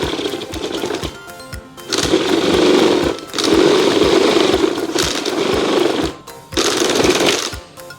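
A power tool running in three bursts, the middle one the longest, over background music with a steady beat.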